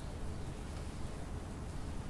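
Steady low background rumble with no distinct handling sounds standing out.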